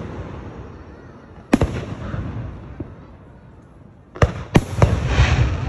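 Aerial fireworks shells bursting overhead: a single bang about one and a half seconds in that echoes away, then a quick cluster of several bangs from about four seconds in.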